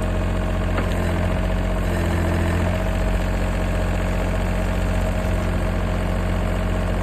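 John Deere tractor engine running steadily, its low note shifting briefly about two seconds in.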